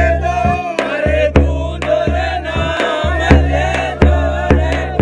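Rajasthani Fagan folk music: a deep drum struck in a steady beat, about two strokes a second, under a wavering melody.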